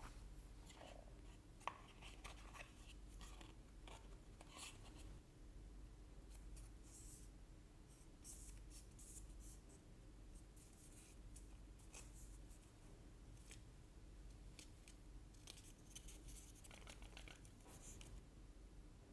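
Faint unboxing handling sounds: the cardboard insert sliding in the box, a sharp click about two seconds in, then fingers scratching and rubbing on the Samsung Galaxy Buds 2 plastic charging case and its protective film.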